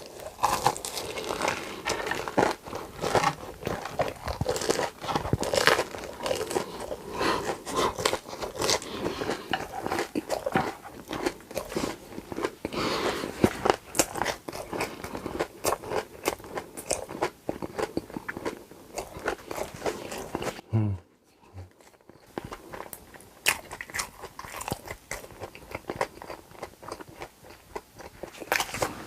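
Close-miked eating: a person takes repeated crunchy bites and chews. The sound breaks off briefly about three-quarters of the way through.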